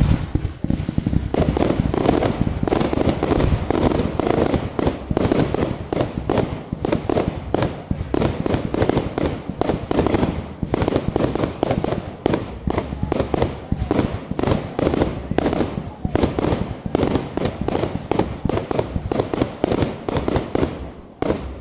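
Aerial fireworks display: a continuous barrage of shell bursts and crackling reports, several bangs a second, that stops abruptly just before the end.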